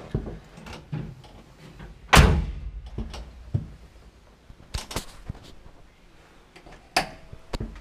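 A heavy thump about two seconds in, then a few sharp clicks and knocks, from someone moving about and handling things inside a stripped car cabin.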